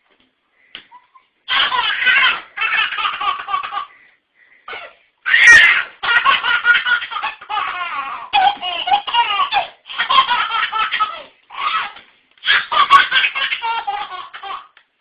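A baby laughing hard in repeated bouts, starting about a second and a half in, with a short break around four seconds and the loudest burst just after.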